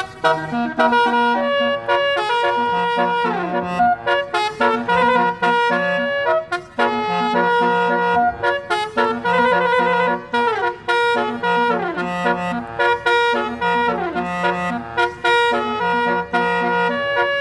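A melody played in brass-like horn tones: held notes over a low bass line, with several notes sliding down in pitch.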